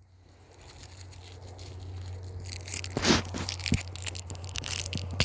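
Plastic peppermint wrapper being pulled from a pocket and torn open, crinkling and crackling. The crackle grows from about a second in, with a sharp tearing burst near the middle.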